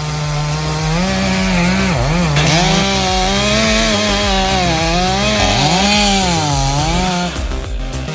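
Two-stroke chainsaw cutting through wood. The engine note climbs about a second in, then dips and recovers several times as the chain bites into the cut.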